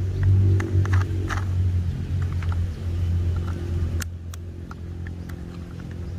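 A steady low engine hum, louder in the first few seconds, with scattered light clicks and taps of a plastic toy fire truck being handled and turned over.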